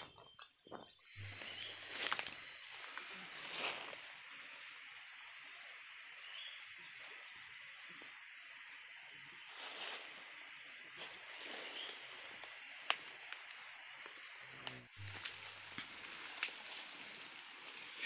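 Steady high-pitched drone of forest insects, with one thin high note held until about three-quarters of the way through and then stopping. A few light snaps and rustles of leaf litter and twigs.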